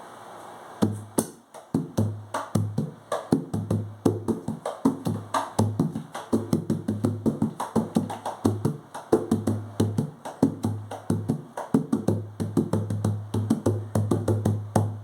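A 12-inch by 50 cm tantan fitted with a napa head, played by hand in a quick, steady rhythm of slaps and deep low notes, starting about a second in. The tone is a little lower and full-bodied, with a heavier bass.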